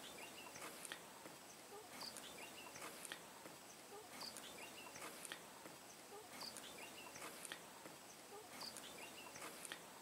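Faint footsteps on a dirt and gravel path, about one a second, with scattered short high chirps in the background.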